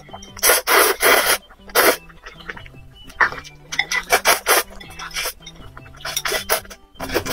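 A person slurping noodles close to the microphone in repeated short, loud bursts, with quiet background music underneath.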